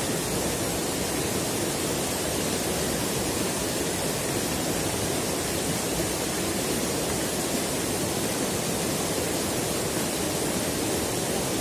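Rocky mountain river rushing through a shallow run, a steady, even rush of water over stones.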